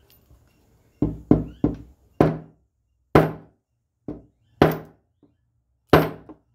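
Three-wheeler brake master cylinder being tapped to knock the piston and seal kit out of its bore: about eight sharp knocks at uneven intervals, each ringing briefly.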